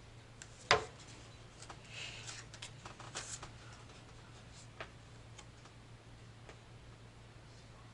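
Rook playing cards handled on a table: a sharp click a little under a second in, then scattered light taps and brief soft rustles as cards are picked up and laid down, over a faint steady low hum.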